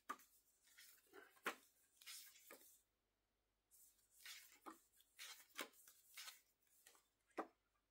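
Faint paper rustles and light clicks of glossy booklet pages being turned and handled, a dozen or so brief sounds with the sharpest about a second and a half in and again near the end.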